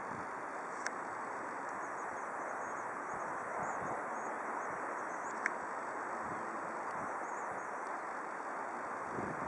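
Distant jet airliner (Airbus A319) engines running at low power as it rolls onto the runway, a steady even rush with faint high chirps over it. Two brief sharp clicks, about one second in and again about five and a half seconds in.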